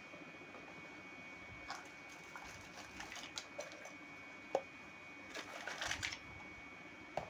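Miniature plastic kitchen toy pieces and their packaging being handled: light clicks and taps, with a sharp click about four and a half seconds in and a short stretch of crinkling rustle around six seconds. A faint steady high whine sits underneath.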